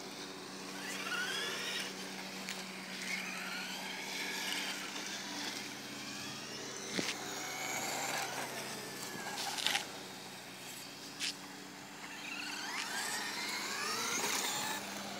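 Electric RC trucks' motors whining, the pitch rising and falling again and again as the throttle is worked, with a few sharp clicks or knocks in between.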